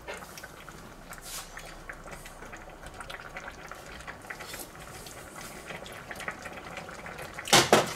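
Thick potato-and-bratwurst stew bubbling in a stainless steel pot, with a steady crackle of small pops as it heats through. A brief louder clatter comes near the end.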